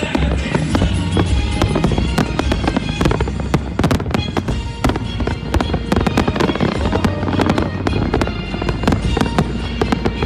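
Fireworks exploding in rapid, overlapping bangs and crackles, heard over loud music with a deep bass.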